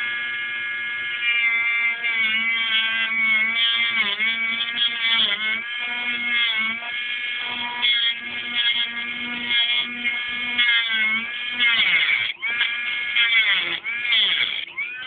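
High-speed rotary tool with a cut-off disc whining as it cuts into a mobile phone's casing. Its pitch sags and recovers again and again as the disc bites and loads up, more often near the end.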